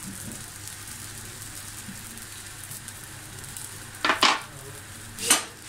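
Paratha dough cooking on a hot tawa griddle, a faint steady sizzle, lightly seared for freezing. Two short, louder noises break in about four and five seconds in.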